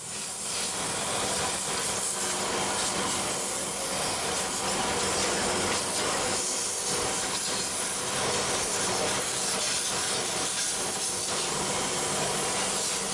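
Compressed-air blow gun hissing steadily as it blows dust and dirt out from between the engine components of a car's engine bay, with a steady low hum underneath.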